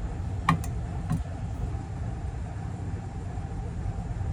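Steady low machinery rumble of bowling pinsetter machinery, with a faint steady hum. A sharp click about half a second in and a softer one about a second in.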